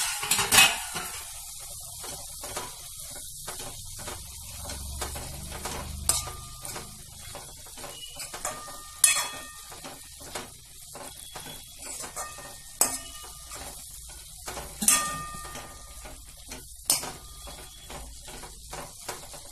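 A metal spoon stirs and scrapes cooked drumstick-leaf bhaji with grated coconut around a metal pan, over a soft sizzle of the vegetable cooking on low heat. Every few seconds the spoon clinks sharply against the pan, and some clinks ring briefly.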